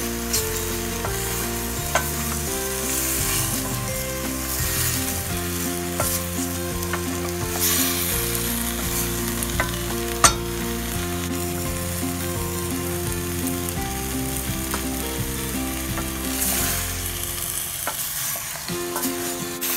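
Vegetables and tofu sizzling as they are sautéed in a stainless steel pot, stirred with a wooden spatula that knocks against the pot now and then. The sharpest knock comes about ten seconds in. Soft background music with held low notes plays underneath.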